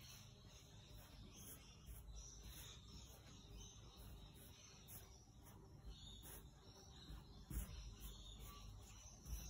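Faint, repeated scratchy swishing of a wide bristle brush scrubbed back and forth across a stretched canvas, blending wet acrylic paint, with two soft low thumps in the last couple of seconds.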